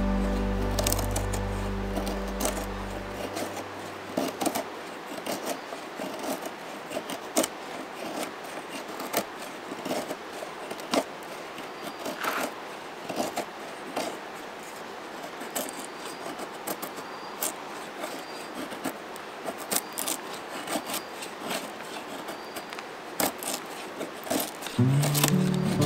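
Knife blade shaving down a split stick of wood to make a feather stick: irregular short scraping strokes, about one or two a second, as curls of wood are carved off. Music fades out in the first few seconds and comes back near the end.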